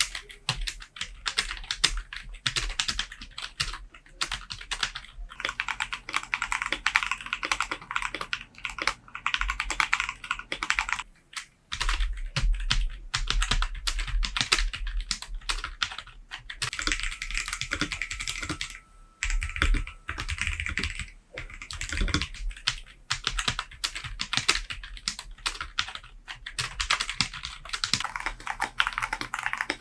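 Fast continuous typing on a membrane computer keyboard, a dense run of keystroke clicks with a brief pause about a third of the way in.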